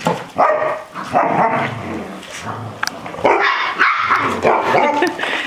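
Seven-week-old Barbet puppies barking during rough play: a string of short barks in bursts, about one every second.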